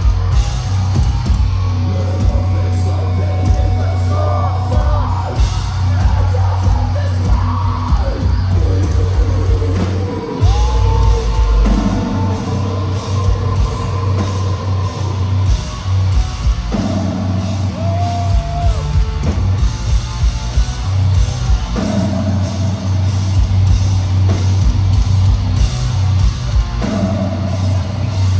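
Metalcore band playing live: heavy distorted guitars and bass with drums, and a vocalist singing and yelling over them.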